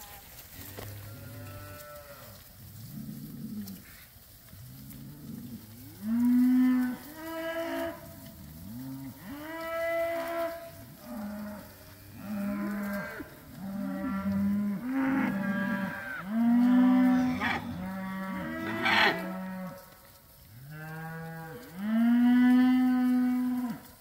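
A herd of cattle mooing, many overlapping calls from several cows one after another, the loudest about six seconds in and again near the end.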